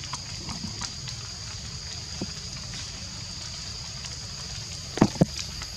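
Steady high-pitched drone of forest insects over a low background hiss, with faint ticks here and there. About five seconds in come two sharp knocks a fraction of a second apart, the loudest sounds.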